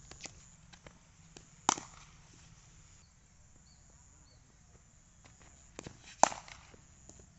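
Cricket bat striking the ball: two sharp cracks, one about two seconds in and a louder one near the end, with a few lighter ticks just before the second.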